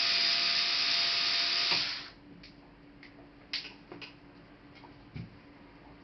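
Small electric screwdriver running for about two seconds, then stopping, as it drives out a laptop screw. A few light clicks follow.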